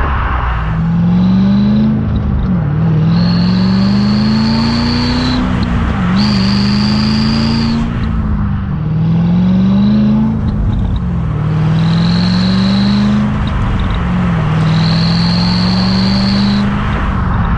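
Corvette C6 Z06's 7.0-litre LS7 V8 exhaust, heard at the tailpipes, pulling hard with its note rising in pitch and dropping back repeatedly. Two clip-on exhaust turbo whistles add a steady high whistle that comes in as the revs climb, four times over.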